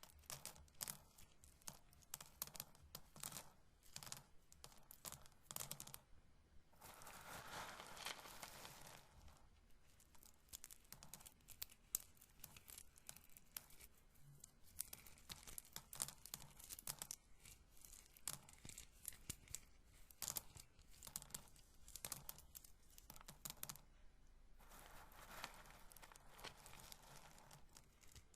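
Roasted corn kernels handled close to the microphone, giving many small, crisp clicks and rattles. There are two longer rustling stretches of rubbing, about seven seconds in and again near the end.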